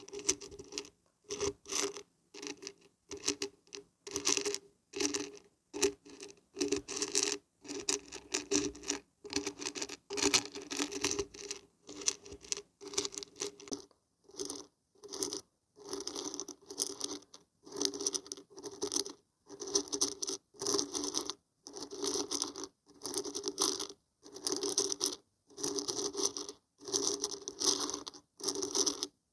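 Dried beans and barberries shaken in short rattling bursts, about one shake a second, with brief silences between.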